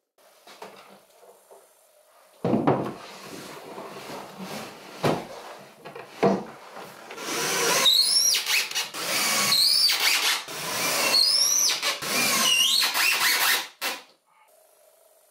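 Cordless screwdriver driving screws into wood, its motor whining up and stopping in about five short runs of roughly a second each in the second half. Before that come knocks and rattling of wood being handled, the first a sharp knock a couple of seconds in.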